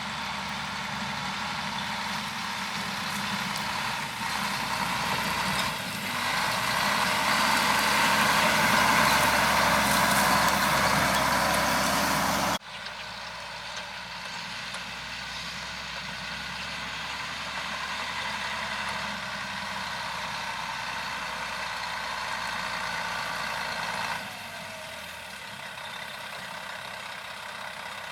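Diesel engines of harvest machinery running steadily, the combine and grain-cart tractor at work in the corn. The sound swells over the first several seconds, cuts abruptly to a quieter, even engine sound about halfway through, and drops again near the end.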